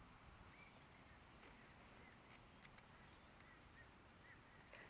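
Near silence with faint, steady, high-pitched insect chirring, and a few soft short chirps every second or so.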